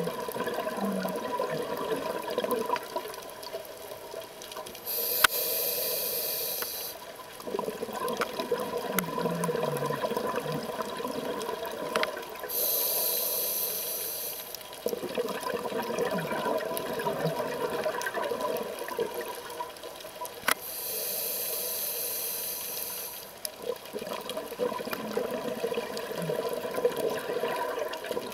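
Scuba diver breathing through a regulator underwater: a hiss on each inhalation, three times about eight seconds apart, with bubbling and gurgling exhalations between.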